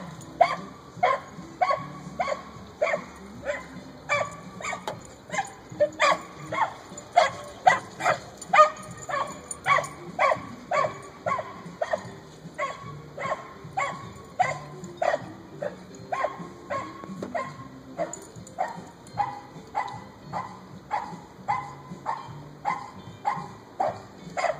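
A dog barking over and over in a steady rhythm, about two barks a second, without a break.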